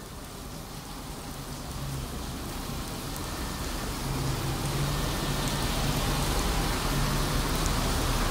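Steady rain, with an approaching diesel locomotive whose engine hum comes in about two seconds in and grows steadily louder as the train nears.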